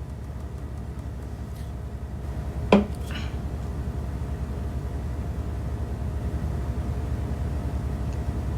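A steady low rumble, with a single sharp clink of a hard object nearly three seconds in.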